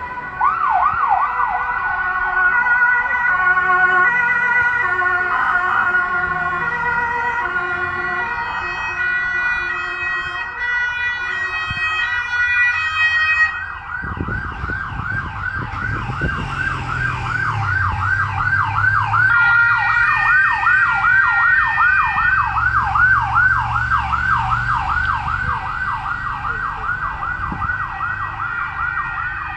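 Croatian police vehicle sirens. For the first half they step between fixed tones, then about halfway through they switch to a fast yelp that sweeps up and down roughly three times a second. A low vehicle rumble runs under the yelp for several seconds.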